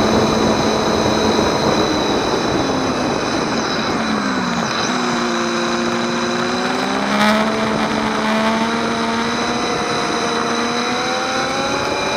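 Motorcycle engine running under wind rush, heard from a bike-mounted camera. The engine note falls about four seconds in as the bike slows for an exit, then holds steady and rises gently near the end as it picks up speed again. There is a brief click a little after seven seconds.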